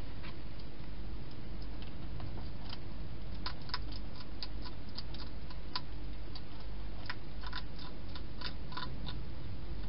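A hedgehog eating at a feeding bowl: irregular crisp clicks of chewing, sparse at first and coming thickly from about a third of the way in, over a steady low hum and hiss.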